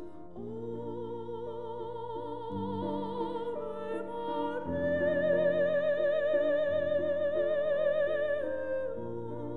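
Slow music: a high solo voice sings long held notes with vibrato over sustained chords. About halfway through it steps up to a higher, louder note, holds it, then falls back near the end.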